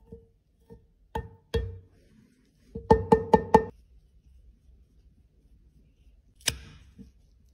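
Plastic powder compact case tapped to shake out loose crumbled powder: hollow knocks with a short ringing tone, a few spaced ones, then a quick run of four about three seconds in, and one sharp click near the end.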